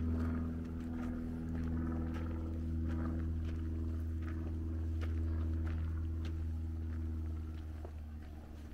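Footsteps on a dirt hiking trail, about two a second, over a steady low engine drone that eases off slightly near the end.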